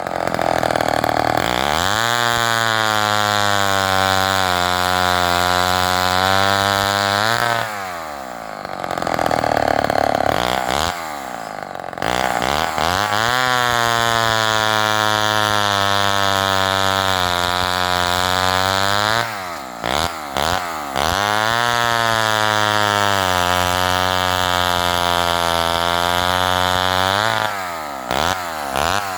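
Homelite XL-12 two-stroke chainsaw with a 20-inch bow bar, revved up and held at high speed three times for several seconds each, dropping back toward idle in between.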